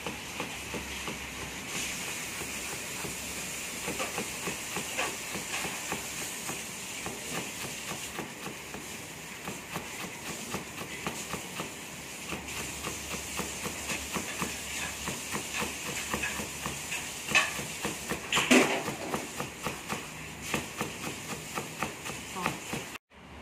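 Chef's knife chopping ginger into fine strips on a plastic cutting board: a quick, even run of blade knocks, about two to three a second, with one louder knock about three-quarters of the way through, over a steady hiss.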